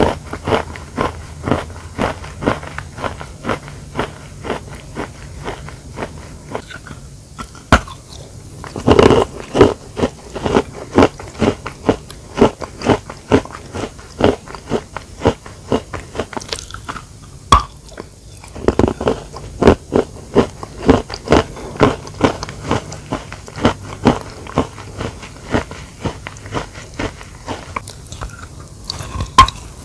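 Person biting and chewing a dry lump of chalk: a steady run of crunches, with louder, harder bites about nine seconds in and again around nineteen seconds.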